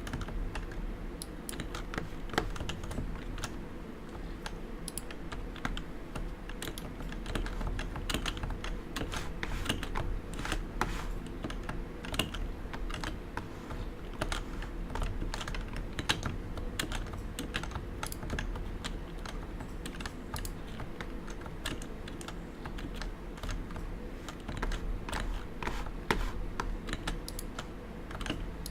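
Steady, continuous typing on a Realforce 87U tenkeyless keyboard with 55 g Topre electrostatic capacitive switches: a dense run of quick keystrokes, several per second, with no pauses.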